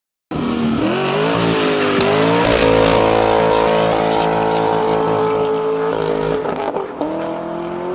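Engine revving through its exhaust. The pitch climbs, then holds steady at high revs for several seconds, drops about six seconds in, and rises again near the end.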